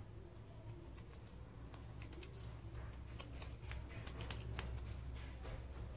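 Oiled hands patting and pressing mashed potato stuffed with paneer into a flat cutlet: faint, soft, wet clicks that come thicker in the second half, over a low steady hum.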